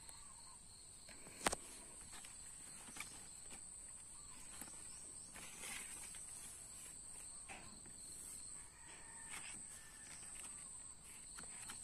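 Insects chirring steadily in one high thin tone, with one sharp click about a second and a half in and a few fainter clicks and rustles.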